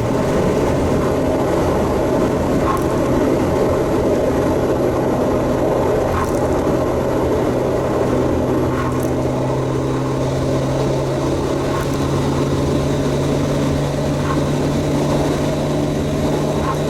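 Mitsubishi Lancer Evolution VIII MR's turbocharged four-cylinder engine droning steadily at cruise under road noise, its pitch creeping slowly upward. The engine is running on fresh spark plugs that cured its fouled-plug misfire.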